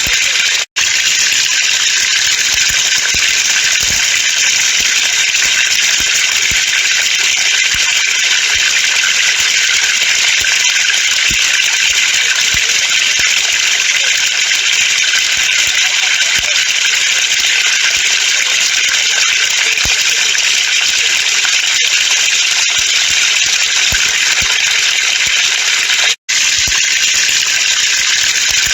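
Water falling from a pipe and spattering: a steady, hissing rush with faint scattered taps underneath. It drops out for an instant twice, about a second in and near the end.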